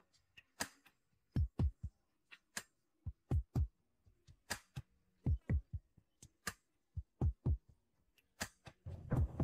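Fingertips tapping and handling a smartphone in its case, close up: irregular soft taps, each a dull thud with a click, several in quick pairs.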